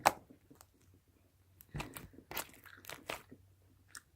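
Hands squeezing and stretching a jiggly slime full of foam beads, giving crunchy clicks and crackles: one sharp click at the start, then a run of crackles from about a second and a half to three and a half seconds in.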